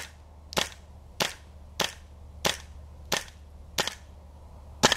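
Gas blowback airsoft rifle firing single shots: eight sharp cracks, about one every two-thirds of a second.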